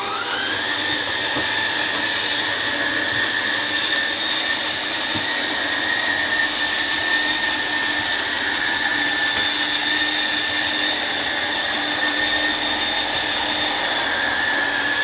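2020 Gulf Stream BT Cruiser 5240's electric slide-out motor extending the slide room: a steady high whine that rises in pitch as it spins up at the start and runs evenly until it winds down at the very end.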